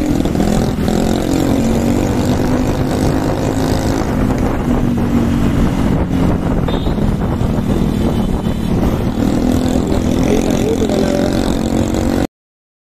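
Motorcycle engine running at speed in city traffic, with wind rushing over the microphone; the engine note drops briefly near the start and climbs again about two-thirds of the way through. The sound cuts off abruptly just before the end.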